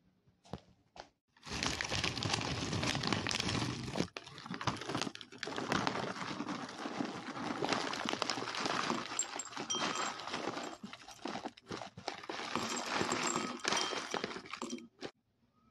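A plastic granola bag crinkling while granola clusters are shaken out of it into a bowl: a dense crackling rustle that starts about one and a half seconds in, with short breaks, and stops just before the end.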